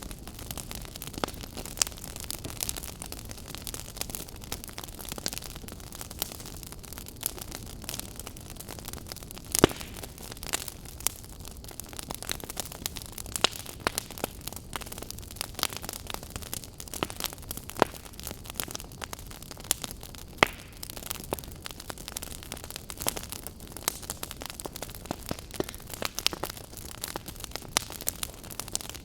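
Campfire crackling: irregular sharp pops and snaps from burning wood over a steady hissing background, with a couple of louder pops about a third and two-thirds of the way through.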